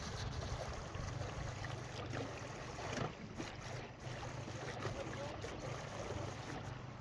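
Wind buffeting the microphone: a steady low rumble under an even outdoor hiss.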